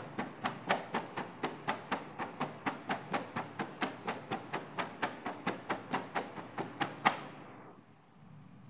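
Rapid ASMR fingertip tapping on a foil-wrapped gift box and a doll's display box, about four to five even taps a second. It ends with one louder tap about seven seconds in.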